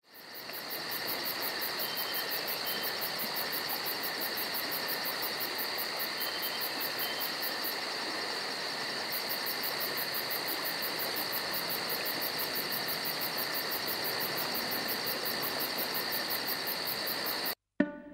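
Summer insect chorus, crickets chirring steadily with a fast, high pulsing trill over a continuous shrill hum. It fades in at the start and cuts off abruptly near the end, where plucked strings begin.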